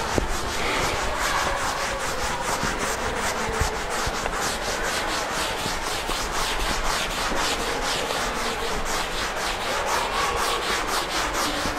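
Chalkboard eraser wiping chalk off a blackboard in quick, even back-and-forth strokes, about four a second.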